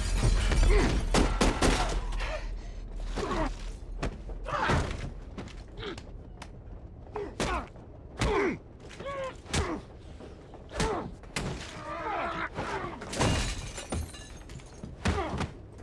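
Close-quarters fistfight: an irregular run of punches, body blows and heavy thuds, loudest and densest in the first two seconds, with breaking glass near the start and men's grunts and groans of effort between the blows.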